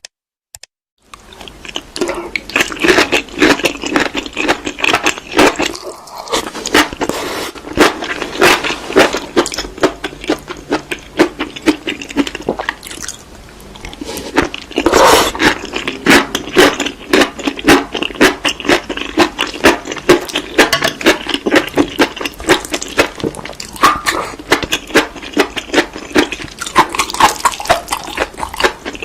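Close-up eating of seaweed: rapid crunching and chewing, with a brief pause about six seconds in and a quieter stretch around twelve to fourteen seconds in.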